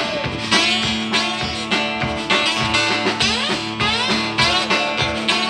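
Live blues played on an acoustic guitar and a drum kit, an instrumental passage with a steady beat and no vocals.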